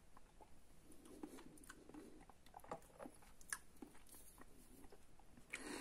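Faint mouth sounds of a person tasting espresso, sipping and working it around the mouth, with a few light clicks as a double-walled glass is set back down on the kitchen worktop. A short breath near the end.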